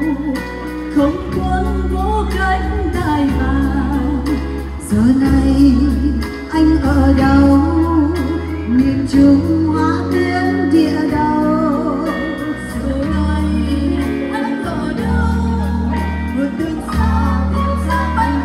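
A woman singing a Vietnamese song with a live band, over held bass notes and a steady beat.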